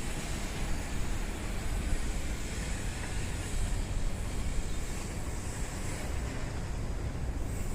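Heavy rainstorm: a steady roar of downpour with wind buffeting the microphone in a low rumble.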